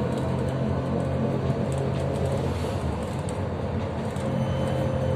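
Cabin noise inside a Bogdan T901 articulated trolleybus: a steady low hum under an even rush, with faint ticks and rattles.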